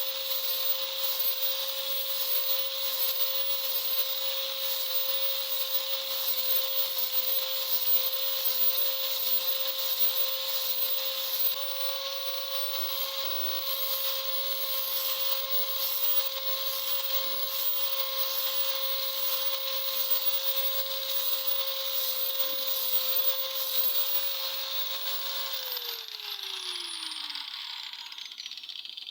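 Electric grinder running at steady speed with a grinding hiss, as steel is ground on the blade. Near the end it is switched off and its pitch falls as it winds down.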